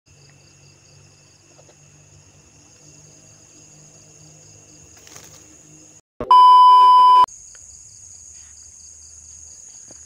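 Night insects chirring steadily in a high, fast-pulsing trill. About six seconds in, the sound cuts out and a loud steady beep, a TV test tone, sounds for about a second before the insect chorus resumes.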